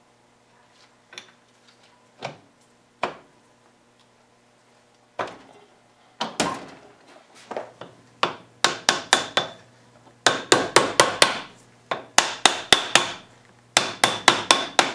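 A soft-faced (plastic-tipped) hammer tapping a new front bearing retainer into place on a manual transmission case. It starts with a few single sharp taps, then from about eight seconds in comes quick runs of taps, several a second, each with a short metallic ring.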